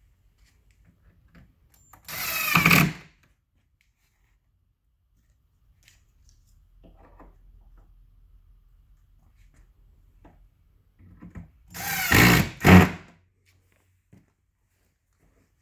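Power drill-driver driving small screws to fasten corner pieces in a base cabinet: two short bursts of the motor, about ten seconds apart, with faint handling in between.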